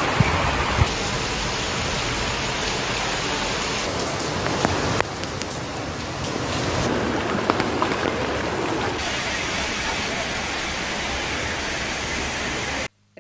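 Heavy rain pouring down: a dense, steady hiss of rain on wet ground and water, with a few sharp clicks in the first few seconds. Its tone shifts several times, and it cuts off abruptly near the end.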